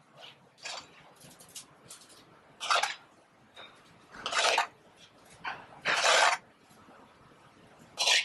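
Metal spoon scraping pasta out of a frying pan and into a ceramic bowl: a series of short scrapes, several of them loud.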